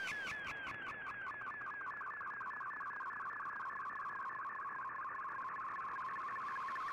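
MFSK digital-mode picture transmission from the Shortwave Radiogram broadcast, received on an Icom IC-R8600 shortwave receiver: a warbling data signal whose pitch sweeps up and down, several times a second, over a background hiss. Each sweep carries image data that Fldigi decodes into a picture.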